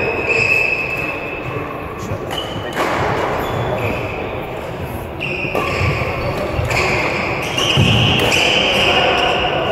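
Busy badminton hall between rallies: scattered racket strikes on shuttlecocks and footsteps from the neighbouring courts, with indistinct voices echoing in the large hall.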